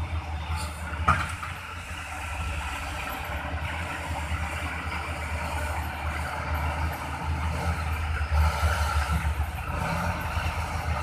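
Heavy diesel engines of dump trucks and crawler bulldozers running steadily, with one sharp knock about a second in.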